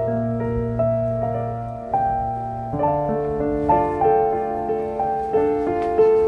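Piano background music: a slow melody of single struck notes, each ringing and fading, over held low bass notes.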